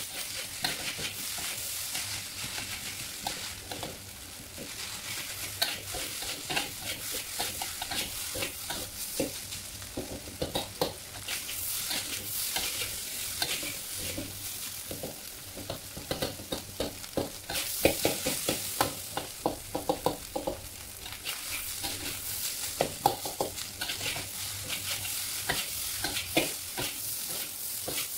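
Fried rice being stir-fried in a wok: a metal spatula scrapes and knocks against the pan in quick strokes over a steady sizzle. The strokes are busiest in the middle stretch.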